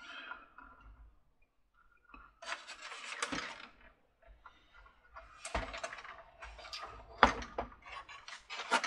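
Plastic clattering and rustling as the upper body of a Mr. Christmas carousel is lifted, turned and set down onto its base. There is a stretch of rustling, then several sharp knocks in the second half, the loudest near the end.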